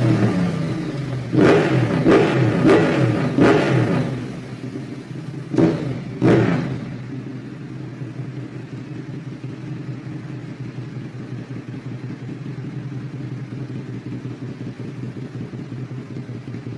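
Sport motorcycle engine blipped on the throttle six times in quick, short revs, then settling to a steady idle.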